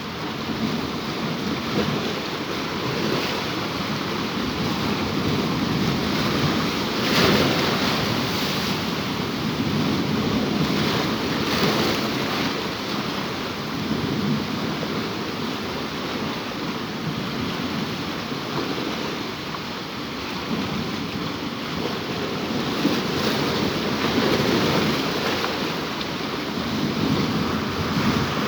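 Sea waves breaking and washing over rocks along the shore, a steady rush that swells with each surge, the loudest around seven seconds in. Wind buffets the microphone.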